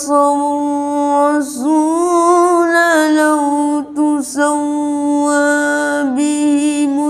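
A boy's voice reciting the Quran in the taranum melodic style. He draws out long, ornamented notes that waver in pitch, with brief breaks about a second and a half in, around four seconds, and near six seconds.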